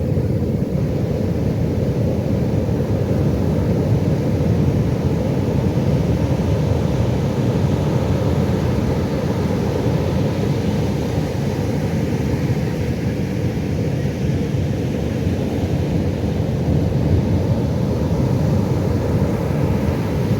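Pacific Ocean surf: a steady low rumble of waves, even in loudness throughout.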